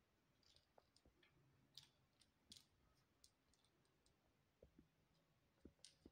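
Faint, irregular clicks and light taps of a small hard object being batted about on a tile floor by a playing kitten.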